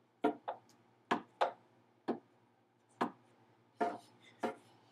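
Hammer blows on wood, about eight irregular knocks, some in quick pairs, each ringing briefly.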